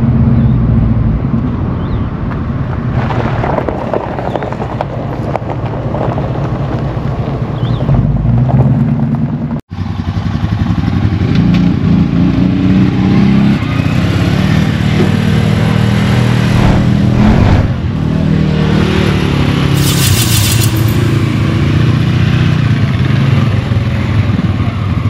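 ATV engines running under throttle, a steady loud engine note with a brief cut in the sound about ten seconds in and a short hiss around twenty seconds in.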